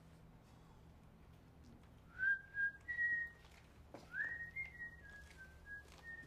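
A person whistling a tune: short held notes stepping up and down, starting about two seconds in, with a quick upward slide into a higher note about four seconds in.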